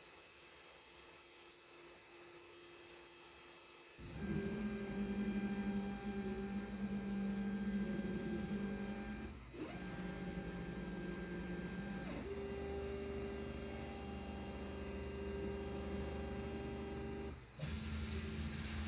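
Stepper motors of a large tool-changer 3D printer driving the carriage during homing. After a few seconds of low hum, a steady whine starts about four seconds in and runs in several moves, its pitch changing from one move to the next, with brief pauses between them.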